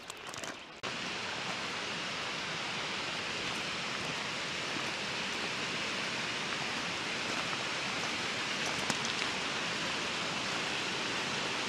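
Footsteps crunching on a gravel track for the first second, then, abruptly, the steady rushing of a mountain stream.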